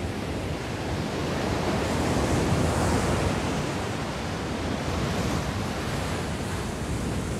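Ocean waves breaking, with wind; the rush of surf swells to its loudest about two to three seconds in, then eases a little and holds steady.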